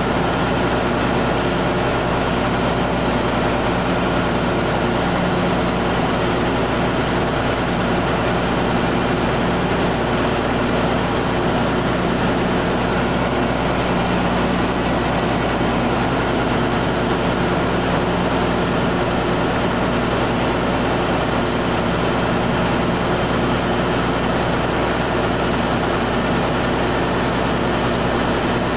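Steady drone of a ship's engine-room machinery running, a constant hum with no change in level.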